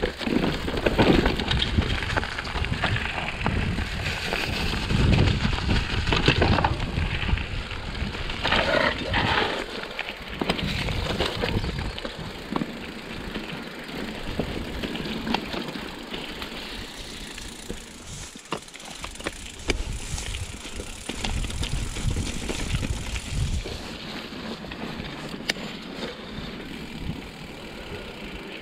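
Mountain bike rolling downhill over a rough dirt trail: tyres crunching over dirt, roots and stones while the frame and chain rattle with each bump. It is loudest and most jolting for about the first ten seconds, then settles into a smoother, quieter roll.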